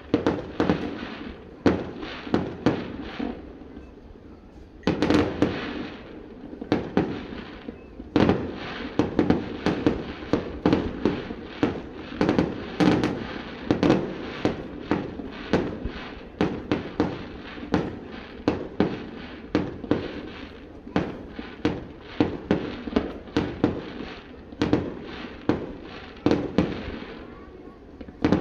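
Fireworks display: a dense barrage of echoing bangs, several a second, easing briefly about four seconds in before building again.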